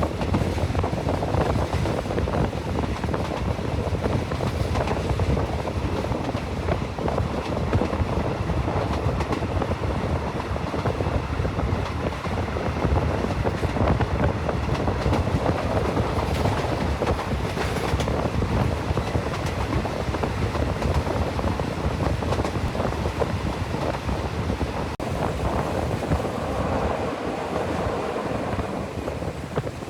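Train running along the track: a steady rumble with the wheels clicking over the rails.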